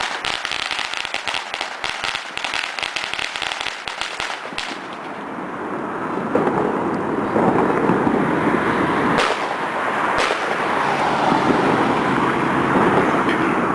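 A string of firecrackers crackling rapidly, cutting off about four and a half seconds in. After that a steady rushing noise with two sharp bangs about a second apart.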